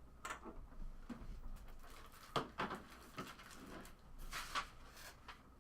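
Trading cards and their packaging being handled on a table: irregular soft rustles and light taps, a little louder about halfway through and again near the end.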